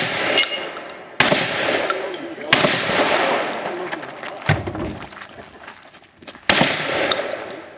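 Shotgun fired three times, loud blasts about a second in, a second and a half later, and near the end. Each rings out in a long echoing tail. A duller thump comes between the second and third shots.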